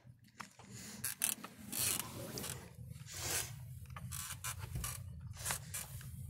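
Handling noise from a phone being moved about close against fabric and a wooden bed frame: irregular rustles, rubs and clicks over a steady low hum.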